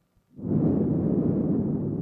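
A person's nose breath blown straight onto a binaural microphone at very close range: one long breath that starts about half a second in, a loud rushing noise.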